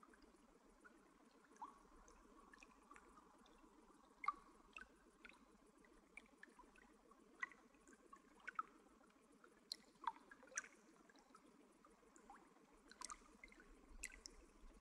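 Quiet water drops falling into water, a dozen or so irregular plinks over a faint steady low background.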